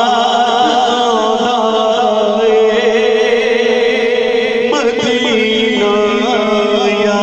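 A man singing a naat, an Urdu devotional song, into a microphone and heard through loudspeakers. The line is ornamented, with wavering turns and long held notes.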